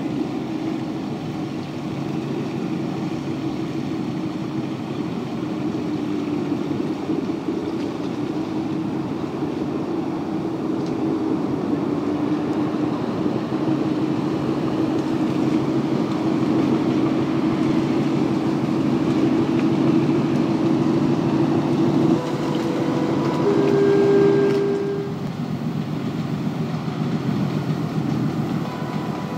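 A steady mechanical hum, slightly wavering in pitch. Near the end, a miniature railway locomotive sounds a few short horn toots.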